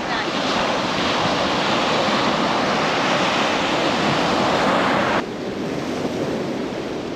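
Sea waves breaking on a beach, a steady rush of surf that drops off suddenly about five seconds in.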